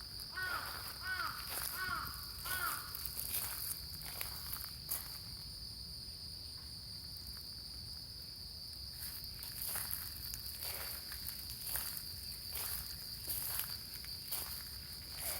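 Outdoor ambience with a steady high insect trill throughout. A crow caws four times in the first three seconds, and footsteps come in during the second half.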